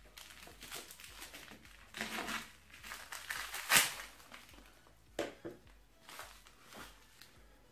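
A small plastic mailer envelope being slit open with a small knife and pulled apart by hand, crinkling in a string of irregular rustles. The loudest comes about four seconds in.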